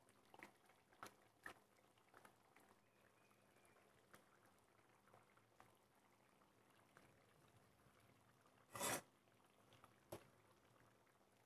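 Very faint sounds of a ladle stirring thick egg curry in a pan: a few soft taps, and a brief louder scrape about nine seconds in.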